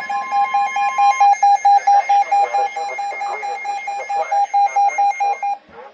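Weather alert radio sounding its alarm: a loud, high electronic beep repeating rapidly. A steady higher tone under it stops about a second in, and the beeping cuts off near the end.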